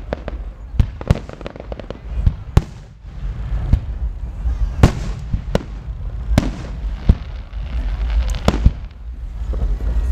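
Aerial firework shells bursting in an irregular string of about a dozen sharp bangs, with crackling and a low rumble between them.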